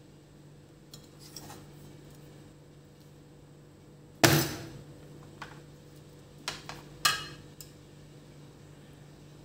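Kitchenware knocking and clinking on a hard surface: a handful of sharp knocks, the loudest about four seconds in and another loud one about three seconds later, with lighter knocks between.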